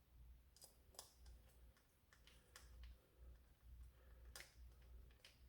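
Faint, irregular clicks of a screwdriver turning a screw back into a plastic toy blaster's shell, a handful of separate ticks over a few seconds.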